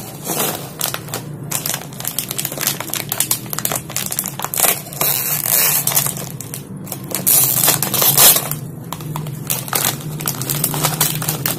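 Plastic snack bag crinkling as it is handled and torn open: a dense run of crackles, loudest about seven to eight seconds in.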